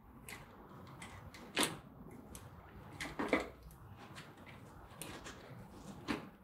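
A few light clicks and knocks of a bicycle front wheel's hub and quick-release skewer being worked into the fork dropouts. The sharpest knock comes about a second and a half in, with a small cluster of clicks just past three seconds and another click near the end.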